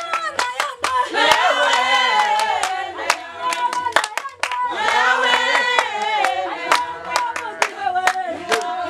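A group singing with steady rhythmic hand clapping. The voices come in two sung phrases, about a second in and again near five seconds in, while the claps keep an even beat throughout.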